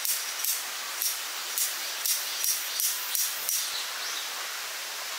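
A cicada's pulsing song: short high-pitched buzzes repeated about twice a second, quickening slightly before stopping about three and a half seconds in, over a steady outdoor hiss.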